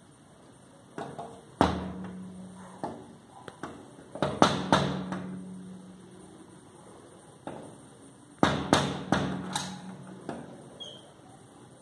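Indian grey hornbill rapping its bill against a glass window pane: sharp taps in two bursts several seconds apart, the pane ringing briefly after the harder blows.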